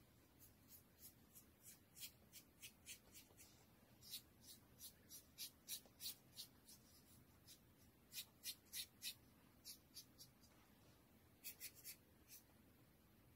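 Faint, quick swishes of a half-inch flat paintbrush dragging acrylic paint across an MDF hardboard panel, about three strokes a second in short runs with brief pauses between them.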